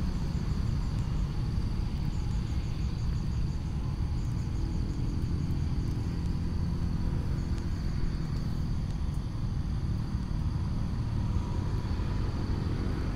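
Steady low rumble of outdoor background noise, with a faint steady high whine and faint short high chirps repeating at intervals.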